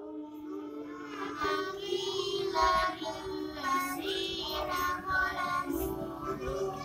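Children's voices chanting a phrase of the Qur'an in melodic recitation, a memorisation drill.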